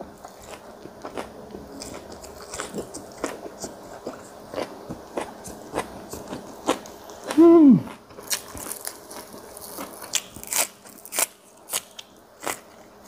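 Close-miked chewing of fermented fish with raw chillies and garlic: a steady run of sharp, wet crunches and bites. About halfway through the eater lets out one short, loud hum that falls steeply in pitch.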